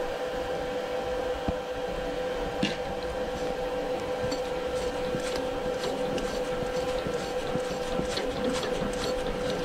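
Steady machine hum with a held whine, over scattered light metallic clicks and ticks as a tap is turned by hand through the milling machine's drill chuck into a steel bush.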